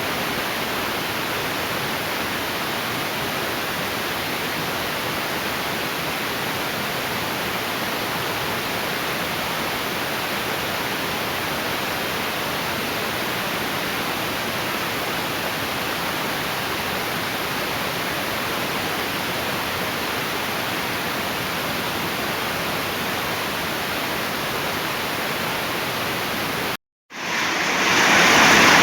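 Heavy rain pouring steadily in a storm. After a sudden brief break about two seconds before the end, it comes back louder.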